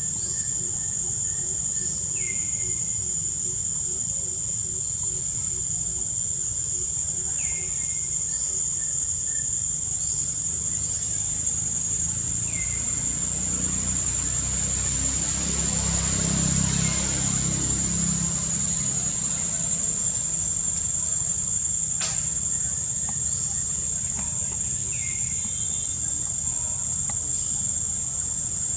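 Insects droning steadily in one high, even tone, over a low rumble that swells about halfway through. Short falling chirps recur every few seconds, and a single click comes near the end.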